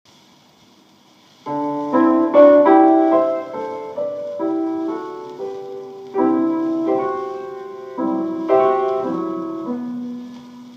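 Piano music: chords and melody notes struck and left to ring and fade, starting about a second and a half in.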